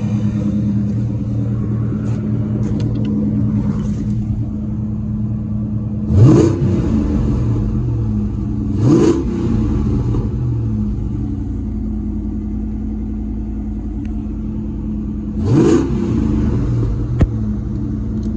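Supercharged 4.6L DOHC 32-valve V8 of a 2003–2004 Ford Mustang SVT Cobra idling steadily, revved three times with quick blips that rise and fall straight back to idle. A single sharp click near the end.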